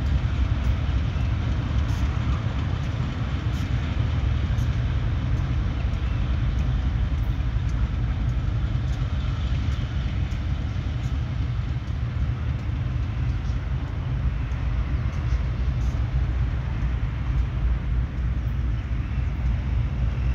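Diesel-electric locomotives of a loaded bauxite ore train, with a steady low rumble as the train moves away along the track.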